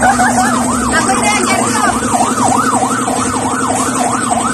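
A warbling siren-like electronic tone, sweeping up and down about three times a second, over a steady low drone.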